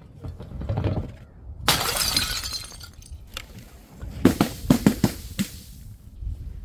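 A glass bottle shattering: one loud crash of breaking glass about two seconds in that fades over about a second. It is followed a couple of seconds later by a quick series of sharp knocks.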